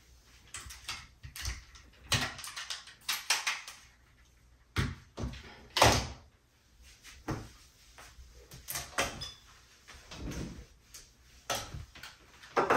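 Toiletry bottles and containers being moved about and set down on a bathroom vanity, with the cabinet beneath handled: a string of irregular knocks, clunks and rustles, the loudest two knocks about five and six seconds in.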